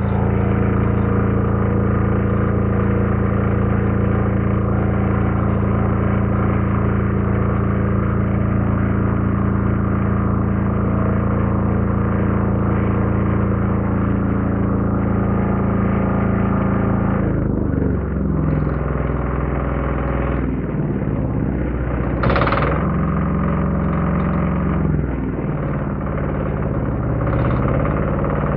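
Wen D6000 generator's single-cylinder diesel engine running steadily, then about two-thirds of the way through its speed starts to shift up and down, with a brief sharper noise partway through that stretch.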